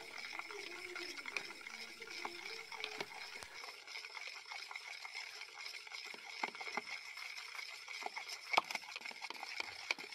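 Water sloshing and splashing faintly in a small plastic bucket as a hand stirs yeast into it, with many small irregular splashes and clicks.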